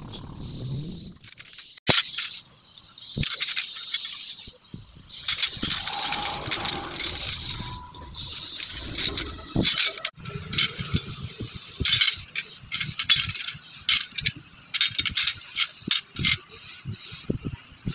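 Hand-forged steel knife blades clinking and rattling against one another as they are handled and laid out, in many irregular sharp metallic clicks.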